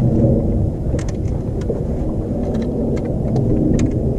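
Steady low rumble of wind buffeting the microphone, with scattered light clicks and knocks.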